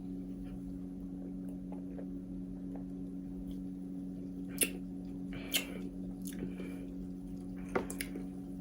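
A person sipping soda and tasting it: a few short, wet mouth sounds (lip smacks and swallows) from about four and a half seconds in, over a steady low hum.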